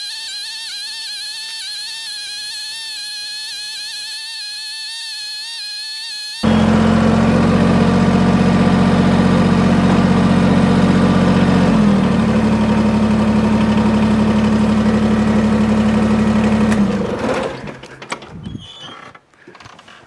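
Compact tractor's engine running. First comes a high, wavering whine; then, about six seconds in, a loud, steady engine note starts abruptly, shifts slightly in pitch around twelve seconds, and stops about seventeen seconds in as the engine is shut off.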